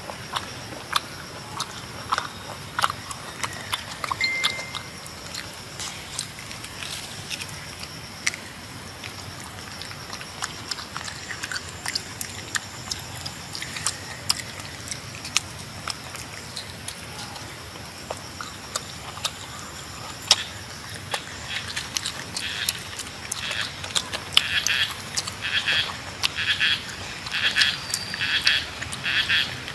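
Macaque eating rambutan fruit: scattered sharp clicks and crunches of chewing and peel being torn. In the last several seconds a frog starts croaking in a regular pulse, about two calls a second.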